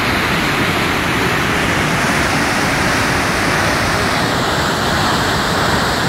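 Mountain river's whitewater pouring over boulders below a waterfall: a steady, loud rush of water.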